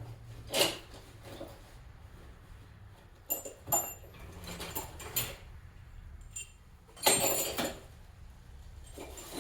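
Loose steel bolts clinking and rattling against each other and a metal toolbox as they are sorted through by hand, with a longer rattle about seven seconds in.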